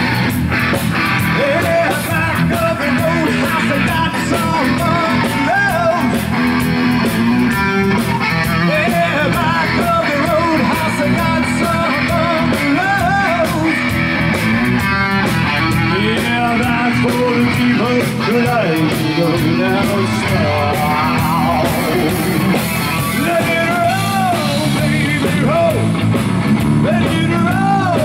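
Rock band playing live: electric guitar with bending notes over bass and drums, with a singer's voice.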